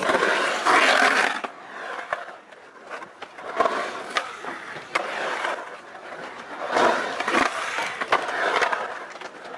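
Skateboard urethane wheels rolling on a concrete bowl, swelling and fading as the skater carves through the transitions. Several sharp clacks as the board's trucks knock the pool coping.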